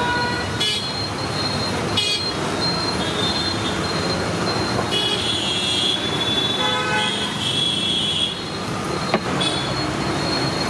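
Road traffic running steadily, with vehicle horns sounding now and then: once near the start and again in longer, high-pitched stretches about halfway through.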